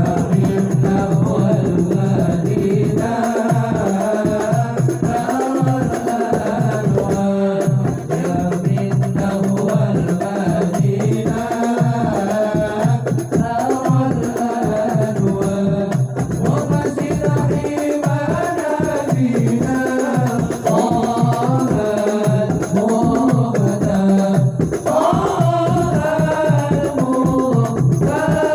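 Sholawat, an Islamic devotional song in Arabic, sung in melodic phrases over a steady hand-percussion beat.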